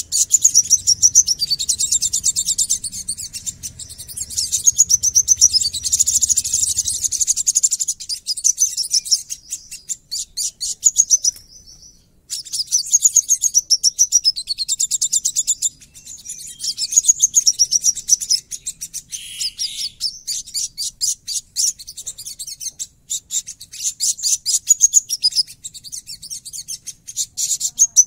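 Caged male sunbird (sogon) singing a fast, harsh, rasping twitter high in pitch, in long rapid-fire runs with only brief breaks.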